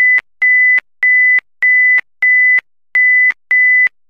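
Emergency-alert beep tone: a single high, pure pitch that sounds in short beeps of just under half a second, switching sharply on and off, about seven of them evenly spaced, leading into an alert announcement.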